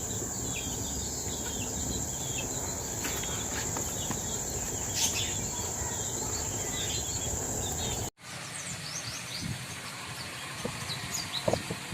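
Steady high-pitched insect trill, like crickets, over a low steady noise, with scattered bird chirps. About eight seconds in the sound cuts off abruptly: the insect trill is gone and only bird chirps and quieter background remain.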